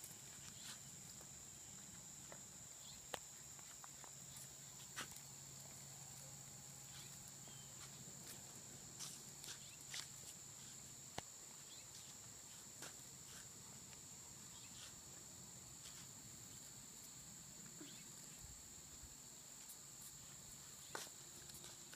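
Faint, scattered light ticks and taps of a small dog's claws and paws on asphalt as it pounces and scrabbles, over a steady high-pitched drone like insects.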